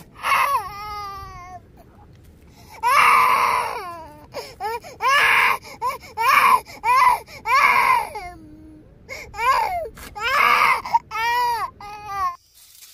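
A young child crying hard: a string of high wails and sobs, some drawn out and some short, with brief catches of breath between them. The crying cuts off abruptly near the end.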